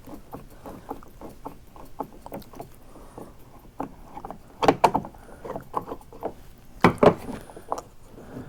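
Screwdriver unscrewing the rudder steering handle on a plastic kayak: small clicks and scrapes of the screws and handle, with louder plastic knocks about five seconds in and again about seven seconds in.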